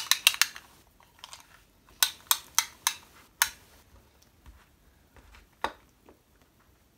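Plastic wrapping on a canvas crinkling and crackling as it is handled: a quick run of sharp crackles at the start, another around two to three and a half seconds in, and a single crack near six seconds.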